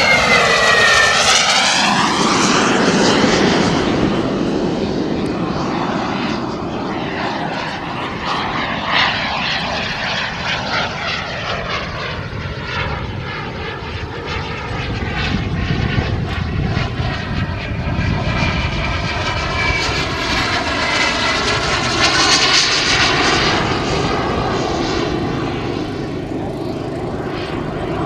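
Radio-controlled model jet flying past, its engine's whine falling in pitch as it goes by near the start. A steady jet rush follows and swells again about three-quarters of the way through as it makes another pass.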